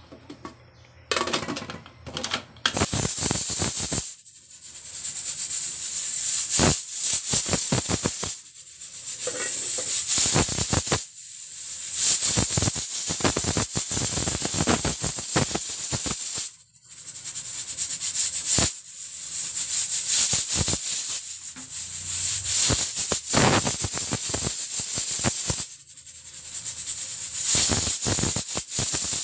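Pressure cooker at full pressure: the weighted regulator on the vent rocks and rattles rapidly as steam hisses out, in surges with brief lulls every few seconds.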